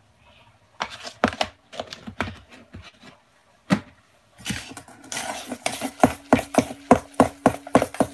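A utensil clacking and scraping against a stainless-steel mixing bowl as a salmon croquette mixture is stirred: a few scattered knocks first, then a steady clacking about three times a second through the second half.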